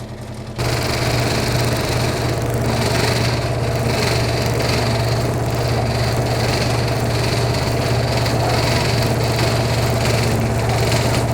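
Road roller's engine running, with a sudden step up to a loud, steady mechanical rumble about half a second in that holds to the end.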